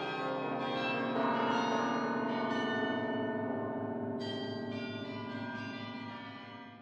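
Church bells ringing, several overlapping tones sounding together and dying away near the end.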